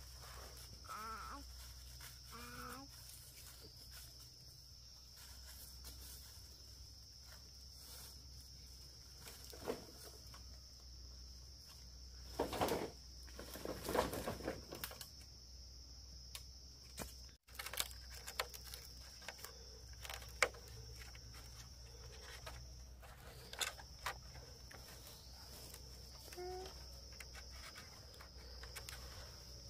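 Steady high-pitched insect drone with scattered knocks and rustles, and a louder scraping, rustling patch about halfway through.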